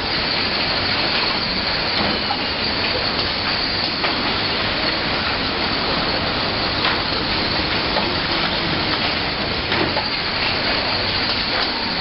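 Steady machinery din of a bottling-line hall: conveyors and packing machines running, with a knock or clink now and then.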